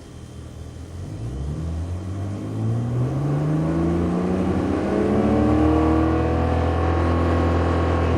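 BMW 135i turbocharged straight-six running through an aftermarket Berk Technology exhaust, accelerating with the engine note climbing steadily in pitch and growing louder, then easing off slightly near the end.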